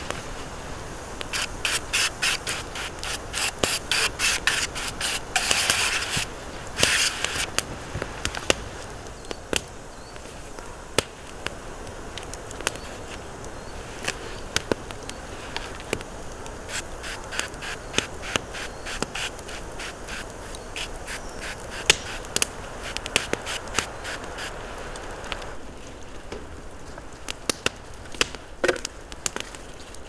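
Hands seasoning a raw zander fillet in a foil tray: handling noises on the aluminium tray, with a quick run of clicks and two short hisses a few seconds in, then scattered clicks as herbs and oil go on.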